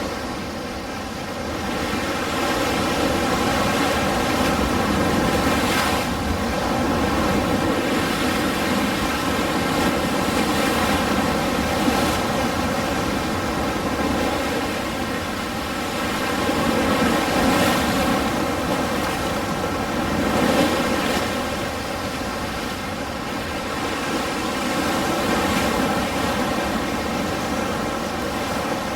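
Ocean surf: a continuous rushing wash of waves that swells and eases several times, loudest around a third and two-thirds of the way through.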